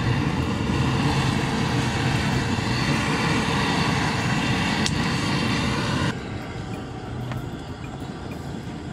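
Hand-held gas torch blasting into charcoal in a small portable grill to light it, a loud steady rushing flame that cuts off suddenly about six seconds in.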